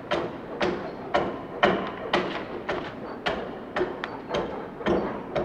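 Foot adze striking a log in a steady rhythm, about two chops a second, each a sharp knock on the wood. It is dressing the face of the hewn log, taking off fine shavings.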